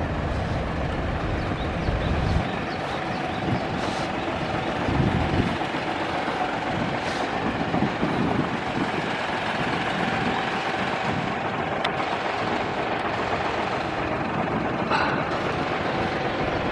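Road traffic noise from vehicles on a wide city avenue, a steady hiss of passing cars and trucks. A deep rumble in the first couple of seconds stops suddenly.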